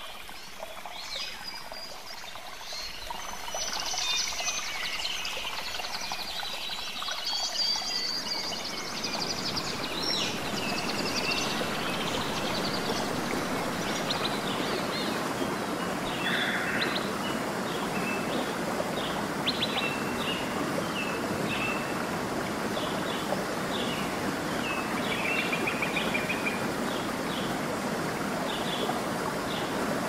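Steady rush of water from a waterfall and rapids, which swells up over the first several seconds and then holds even, with birds singing and chirping over it throughout.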